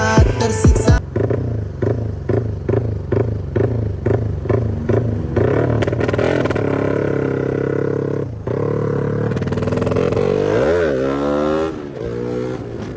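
Yamaha Y15ZR single-cylinder motorcycle engine running through a Red Leo aftermarket exhaust, surging in quick even pulses about three times a second, then running steadily, with one short rev up and back down near the end.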